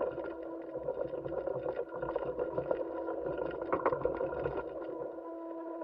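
Steady hum made of several fixed tones, with frequent crackles and clicks over it.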